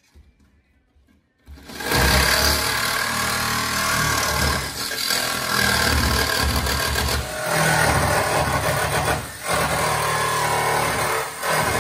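Corded jigsaw cutting through the van's ribbed sheet-metal roof, starting about a second and a half in: a loud, steady motor buzz with the rasp of the blade in the metal, dipping briefly a few times.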